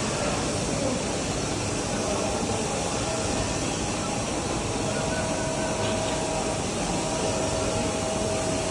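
Hybrid servo-hydraulic press brake running: a steady, noisy hum, with a faint whine rising out of it twice in the second half.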